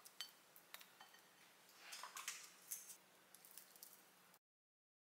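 Faint clinks and scrapes of a metal fork against a ceramic plate while spreading mashed avocado, with a soft scraping stretch about two seconds in; the sound cuts to dead silence a little over four seconds in.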